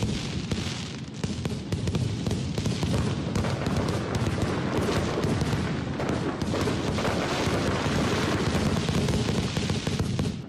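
A dense fireworks barrage: many shells bursting at once in a continuous mass of bangs and crackling, which cuts off suddenly at the end.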